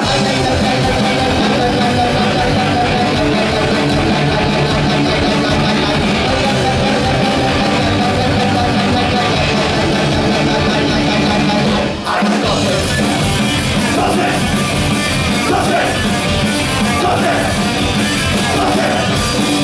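Punk rock band playing live and loud: electric guitar, bass and drums, with a short break about twelve seconds in before the band comes back in.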